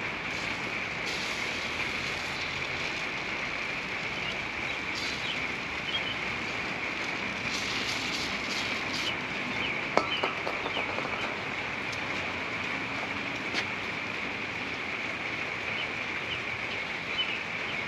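A steady high-pitched drone runs throughout, with scattered light clicks and short scraping rustles from parts and tools being handled; a sharp click about ten seconds in is the loudest.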